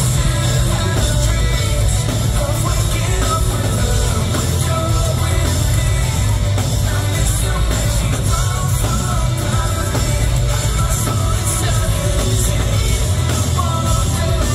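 Live rock band playing loudly with a lead vocalist singing over electric guitars, bass and drums, heard from within the crowd at a club show.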